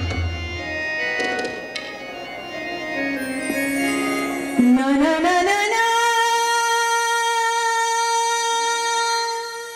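Live folk music: a woman singing with instrumental accompaniment, with a few drum strokes in the first couple of seconds. About four and a half seconds in, her voice slides upward into one long high note, held for about three seconds before it fades near the end.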